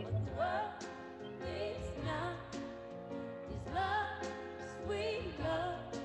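Background music playing: a voice singing a slow, wavering melody over held chords and a bass line.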